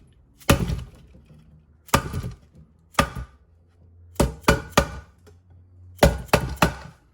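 About ten sharp taps, some single and some in quick runs of three or four, driving a new camshaft oil seal into place with a flat-faced object.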